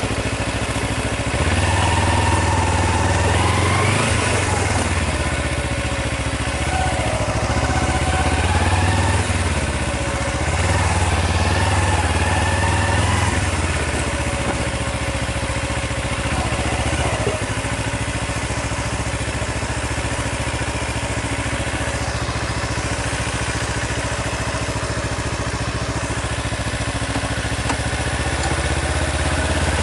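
Kawasaki Ninja 250's parallel-twin engine at low speed, the revs rising and falling a few times, then settling into a steady idle for the second half.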